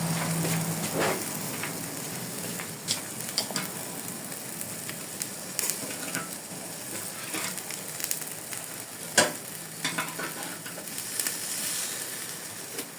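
Chicken and red snapper sizzling on a charcoal barbecue grill, a steady hiss with a few sharp clicks, one about a second in, two around three seconds and one near nine seconds.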